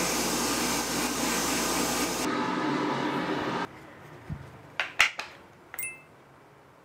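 Sandblasting cabinet blasting a plastic power-tool housing: a steady hiss of air and grit that cuts off about two seconds in, with a lower steady noise running on for a moment longer. Then a few light clicks and knocks as the blasted plastic housing pieces are handled.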